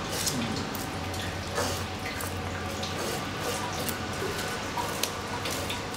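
Handheld scale-off and back-opening fish machine scraping scales off a fish's body: a steady low hum under many small scattered ticks and crackles as scales flick off and land in a steel tray.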